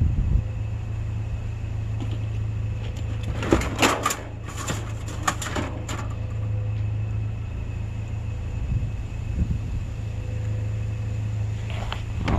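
Truck engine idling steadily, with a few seconds of clattering metal knocks about three to six seconds in as scrap is handled and loaded.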